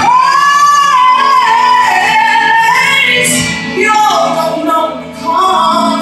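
Gospel ballad with a woman singing long, sliding held notes over instrumental backing.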